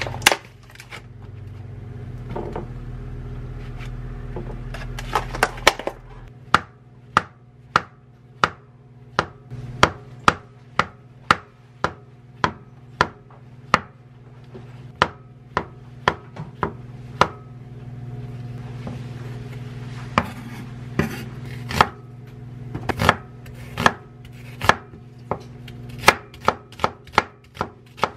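Chef's knife slicing button mushrooms on a wooden cutting board, sharp knocks about one a second, then quicker runs of strokes as an onion is chopped near the end. A steady low hum runs under the first few seconds and stops about six seconds in.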